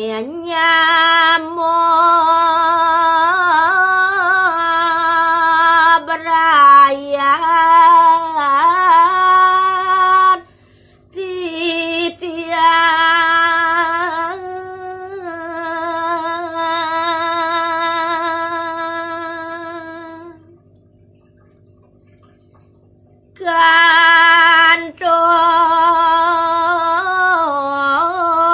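A woman singing Balinese pupuh Ginada solo, with no instrument, in long held notes with wavering ornaments. A long note fades out about two-thirds of the way through, there is a pause of some three seconds, and then the singing resumes.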